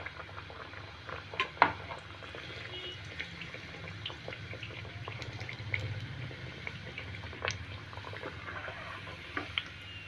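A kachori deep-frying in hot oil in a kadhai: a steady sizzle with scattered crackling pops. There are a few sharp clicks, the loudest about one and a half seconds in.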